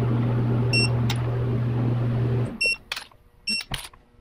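Digital torque wrench beeping three times as a timing-component bolt is tightened to its preset torque, with a few short ratchet clicks. A steady low hum underneath stops about halfway through.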